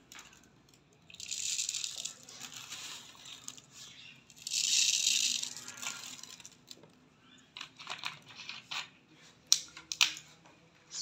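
Dry lentils rustling in a plastic bag and dropped by the handful into a plastic water bottle, in two bursts about a second and four and a half seconds in. Scattered sharp clicks follow as the bottle is handled and capped.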